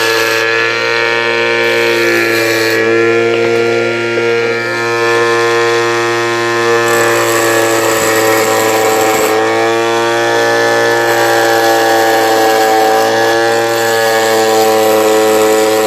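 Homemade cutter's 775 DC motor spinning a metal cutting wheel with a steady whine. A harsher hiss of grinding joins it twice, over the first few seconds and again about seven to nine seconds in, and the pitch sags briefly a couple of times as the wheel takes load.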